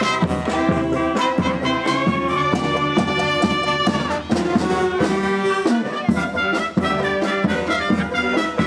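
Brass band playing live, trumpets and trombones holding long notes over a steady drum beat.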